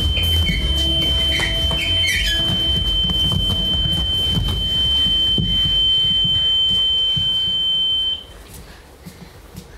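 A steady, high-pitched electronic tone held over a low background of rumble and clatter, cutting off suddenly about eight seconds in.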